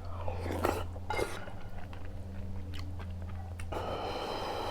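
Close-miked chewing and wet mouth smacks of someone eating spicy ramyun with rice mixed into the broth, with short clicks throughout and a longer noisy stretch near the end.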